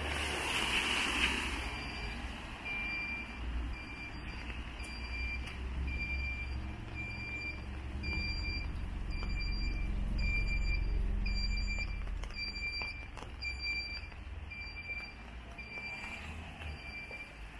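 Electronic warning beeper giving a short high beep about once a second, growing louder and then fading as it is passed. This is typical of a garage-exit alarm warning pedestrians of cars leaving a building. Under it there is a steady low traffic rumble, with a louder swish of noise in the first second.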